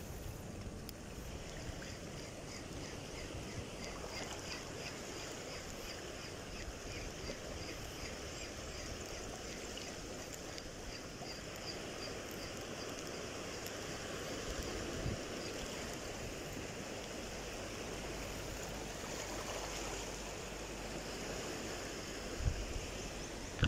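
Steady wash of wind and shallow sea water lapping at the shore, with a faint fast ticking through the first half. A couple of low knocks come near the end.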